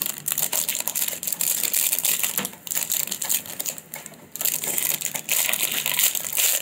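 A crinkly plastic wrapper being squeezed, twisted and pulled at by hand: a dense crackling with a couple of brief pauses, the wrapper too tough to tear open.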